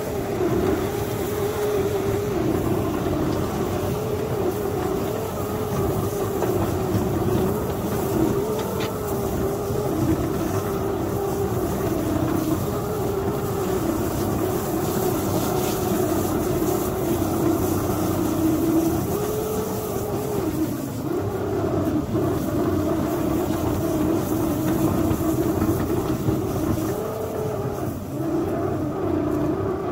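Miniature ride-on locomotive running steadily under load while its front plow pushes through heavy, wet snow. The drive gives a continuous drone whose pitch keeps wavering up and down as the load changes, mixed with the rush and scrape of the snow against the plow.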